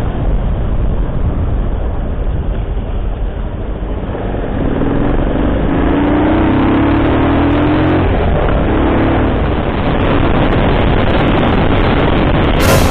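A vehicle on the move with heavy wind and road rumble. An engine note rises in pitch about halfway through as it accelerates, then climbs briefly once more.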